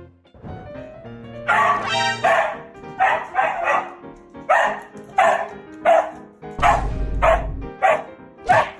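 Dog barking over and over, about a dozen sharp barks starting a second and a half in, over steady background music.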